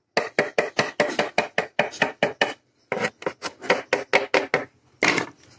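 Rapid knocking on a motorcycle's hard plastic headlight visor at its glue-repaired mounting lug, about six knocks a second in two runs with a short pause between, then one louder knock near the end.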